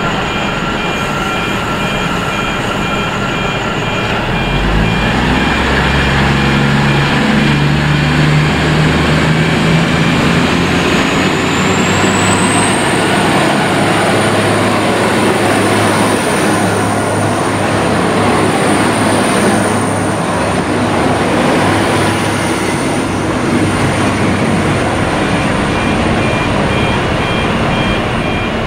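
V/Line VLocity diesel multiple unit pulling away from a platform. Its underfloor diesel engines throttle up about four seconds in, with a low engine note climbing in pitch. A high whine then rises and holds steady as the railcar accelerates past.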